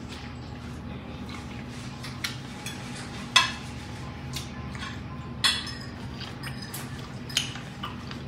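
Fork clinking against a dinner plate while eating: about five short sharp clicks, the loudest about three and a half seconds in, over a steady low hum.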